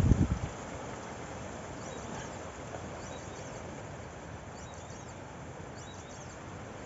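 Wind buffeting the microphone dies away within the first half-second, leaving quiet open-air ambience. A few faint, short, high bird chirps come through near the middle.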